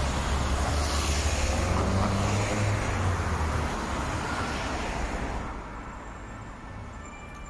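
A motor vehicle passing close by: a low engine rumble with tyre and road noise that fades away about five seconds in.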